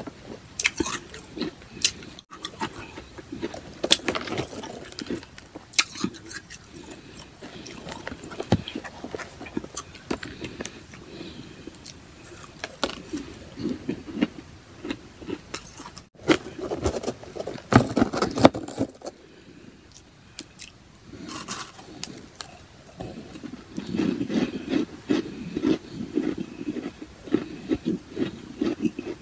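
Close-up chewing and crunching of powdery freezer-frost ice chunks, with scattered crackles and scrapes, and a steady run of crunches in the last few seconds.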